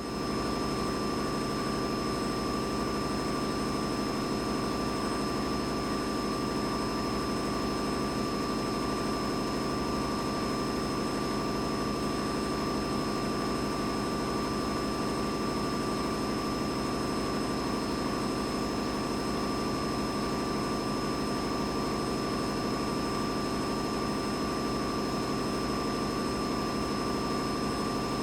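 Boiler room ambience: a steady mechanical drone of running plant machinery, with a constant whine on top of a dense rumble.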